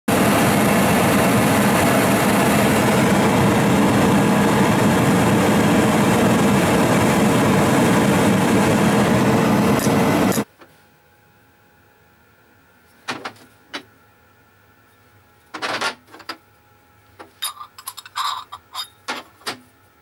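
Homemade venturi propane burner, a 1-inch steel pipe with a reducer fitting and a 0.8 mm welding-tip jet, running with a steady, loud rush of flame as it heats a steel rod red hot. It stops abruptly about ten seconds in. Then come scattered metallic clinks and clatters of steel pipe fittings and parts being handled on a steel bench.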